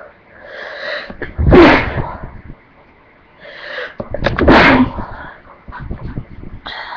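A person sneezing twice, about three seconds apart. The noise builds for about a second before each loud burst, and there are quieter breathy sounds near the end.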